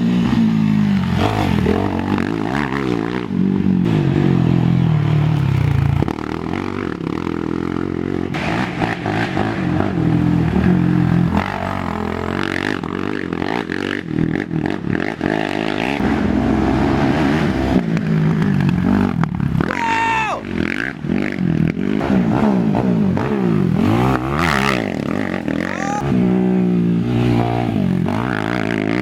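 Racing ATV engines revving, the pitch climbing and dropping over and over as the quads accelerate and shift, several engines overlapping.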